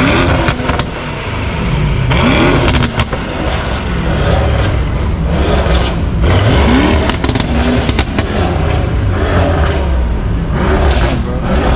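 Mercedes-AMG performance cars revving as they pull away one after another, the engine pitch rising in short runs about three times.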